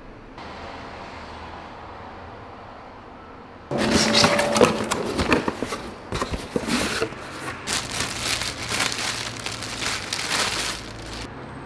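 Packaging being handled: cardboard box parts and a clear plastic bag wrapped around a bike saddle, crinkling and rustling loudly from about four seconds in until shortly before the end.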